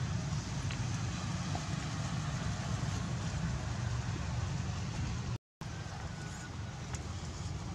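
Steady background noise, a low rumble under an even hiss, broken by a brief dropout to silence about five seconds in.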